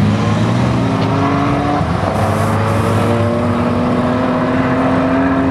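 Turbocharged drag car's engine at full throttle down the strip, its note climbing steadily with a brief dip about two seconds in as it changes gear.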